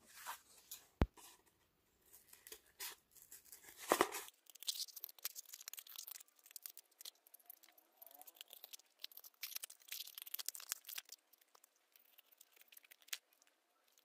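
Scissors cutting through cardboard: a faint run of irregular crunching snips, densest from about four seconds in to about eleven seconds, with a couple of sharper clicks before it.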